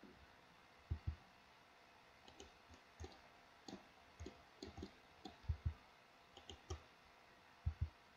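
Faint, irregular clicking of a computer mouse, several clicks coming in quick pairs. The loudest pairs fall about a second in, midway and near the end.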